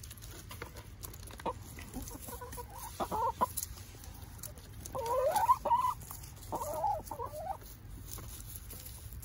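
Hens clucking in three short bouts, the loudest about halfway through, as they feed on mealworms from a hand.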